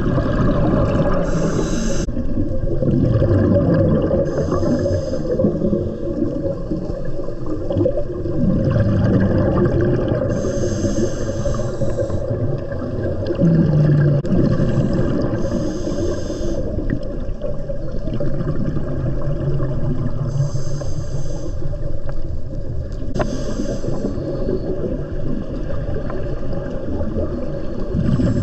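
Underwater camera sound of a scuba diver's regulator breathing, with a hiss of exhaust bubbles every few seconds, over a steady low underwater rumble.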